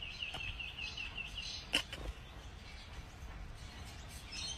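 A bird chirping in a fast, even run of short high notes, about six a second, that stops about a second and a half in. A single sharp knock follows just after, over a low outdoor rumble.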